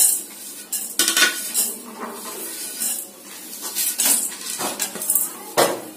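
Whole spices, including coriander seeds and dried red chillies, being swept off a plate into a dry stainless-steel kadai. The seeds clatter and skitter on the bare metal in a string of short rattles and scrapes.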